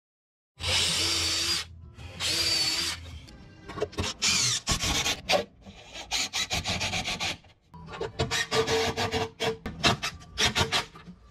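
DeWalt cordless drill running in two short bursts, boring pilot holes into a western red cedar board, followed by a DeWalt cordless impact driver hammering screws into the wood in several rattling bursts.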